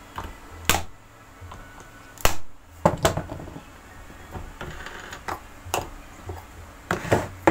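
Scattered sharp clicks and taps of a screwdriver and fingers on a blender's black plastic drive coupling as it is turned on its shaft, about half a dozen, irregularly spaced.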